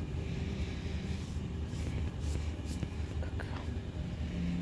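A vehicle running, a steady low rumble with a faint hiss above it, with no change through the stretch.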